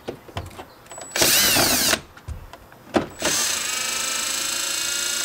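Cordless drill/driver backing out two Phillips screws, the electric motor whining in two runs: a short one about a second in with its pitch shifting, then a longer steady run from about three seconds in. Small clicks of the bit on the screws come between.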